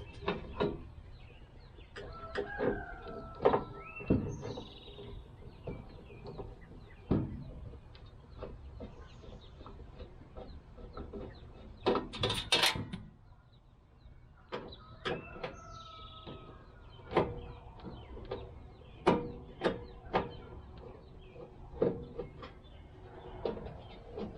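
Scattered clicks, taps and knocks of a screwdriver and the grill's sheet-metal controller panel being worked and handled, with a busier clatter about halfway through. A bird calls a few times in the background.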